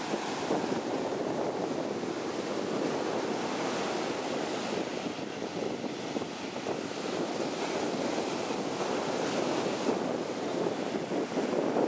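Ocean surf breaking and washing up a sandy beach, a steady rushing wash that swells and eases with each wave.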